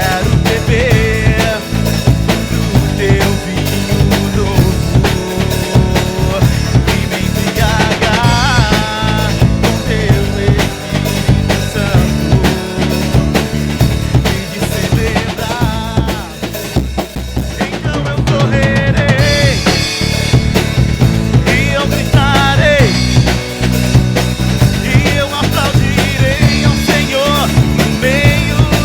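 Gospel song performed on drum kit, with bass drum, snare and rimshots keeping a steady beat, backed by acoustic guitar and a singing voice. The band thins out briefly a little past halfway, then the full beat returns.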